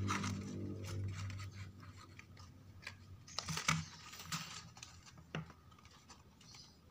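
Printed cardstock model pieces rustling and crinkling as fingers fold and press them together, with a few sharp paper clicks, the loudest a little over halfway through. A low background drone fades out over the first two seconds.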